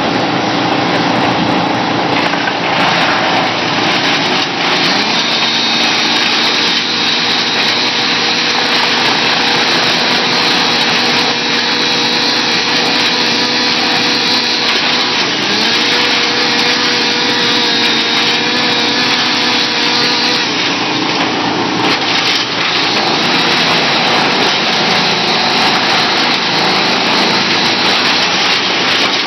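2004 Bandit 280 wood chipper running and chipping branches as they are fed in: a loud, steady mechanical noise whose pitch shifts a few times as the load changes.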